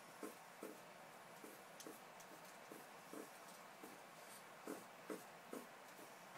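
A cat licking window blinds: faint, soft, rhythmic licks, about two a second.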